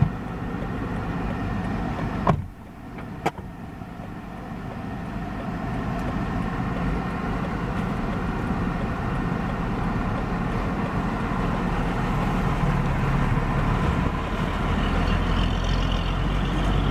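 Motor vehicle engine running steadily, with a sharp click about two seconds in; after the click the sound drops and then slowly builds back up.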